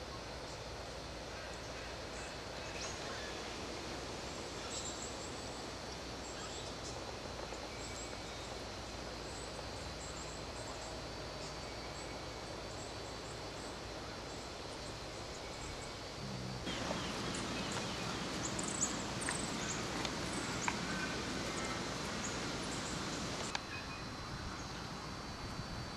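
Outdoor forest ambience: a steady hiss with faint, high bird chirps now and then. About two-thirds of the way in, a louder rustling with small snaps and clicks in dry undergrowth starts suddenly, runs about seven seconds and stops suddenly.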